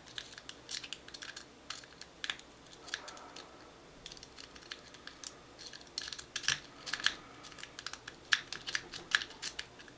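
Snowman rake scrubbing in and out of a Master Lock 141D padlock's keyway: quick, irregular small metallic clicks and scrapes as the pins are raked, coming thicker in the second half.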